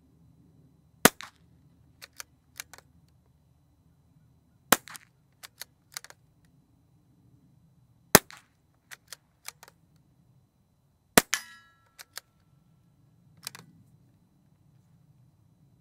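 Unsuppressed .22 LR bolt-action rifle firing subsonic 40-grain ammunition: four sharp shots about three and a half seconds apart, each followed by a few quieter clicks. A brief metallic ring follows the last shot.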